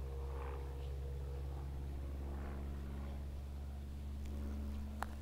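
Van's RV-7 single-engine propeller airplane droning steadily in the distance as it flies away, with a sharp click near the end.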